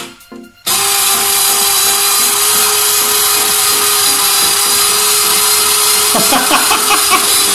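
Electric vegetable spiral slicer switching on under a second in, its motor running with a steady whir and a constant hum as it spins a zucchini against the blade. It runs too fast, which the owner puts down to too powerful a power adapter.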